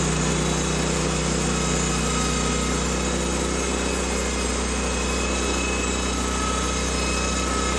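Small gas engine of a sawmill running steadily at an even speed, with no change in pitch.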